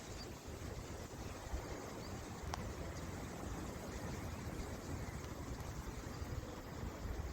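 Steady outdoor background noise: an even rushing hiss over an uneven low rumble, with a single faint click about two and a half seconds in. No birdsong stands out.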